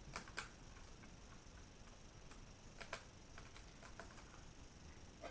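Faint, scattered light clicks and taps of laptop hardware being handled during a GPU module reseat: two clicks near the start, a sharper pair about three seconds in, and a few softer ones after.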